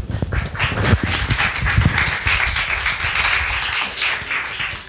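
Audience applauding, a steady patter of many hands clapping, with a few low thumps in the first couple of seconds.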